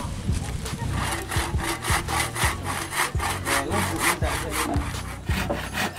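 Hand saw cutting through a wooden plank in quick, even back-and-forth strokes, about three to four a second, easing off near the end.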